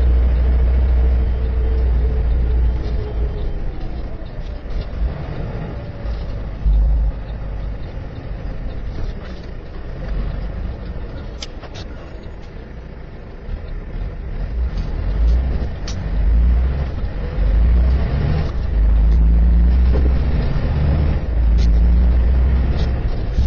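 Heavy truck's engine rumbling, the low rumble swelling and fading several times, with a few sharp clicks.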